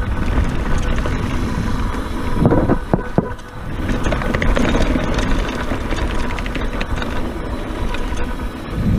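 Wind rushing over the microphone and knobby tyres rolling on a dirt trail as a Scott Genius mountain bike rides downhill, with a couple of sharp knocks from the bike about two and a half to three seconds in. The rushing grows louder near the end.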